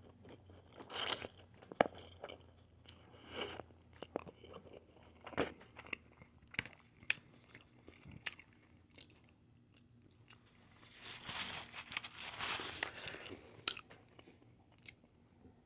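A person chewing mouthfuls of chow mein noodles close to the microphone: scattered soft clicks and smacks, busier for a couple of seconds in the last third.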